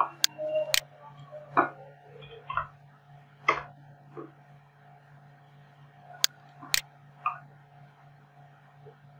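Computer mouse clicks, sharp and in two quick pairs, one near the start and one about six seconds in, with a few duller keyboard keystrokes between them, over a steady low hum.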